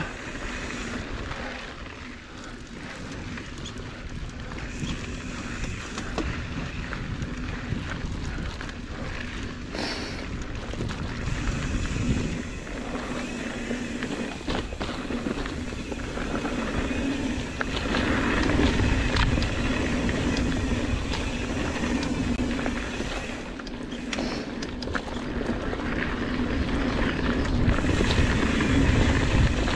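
Mountain bike riding over dirt singletrack: tyres rolling on dirt and the bike clicking and rattling over bumps, with wind rumbling on the microphone, louder in the second half as speed picks up.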